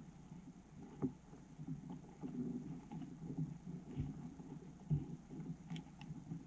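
Muffled underwater ambience heard through a camera's waterproof housing: an uneven low rumble of moving water, with three dull knocks.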